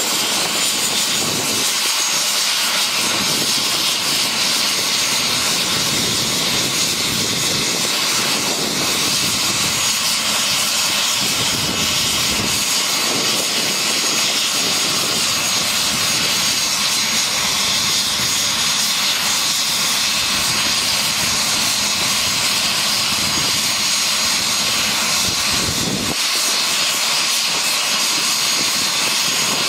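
AgustaWestland AW139 air ambulance helicopter running on the ground with its rotor turning: a steady turbine whine over the even rush of rotor and engine noise.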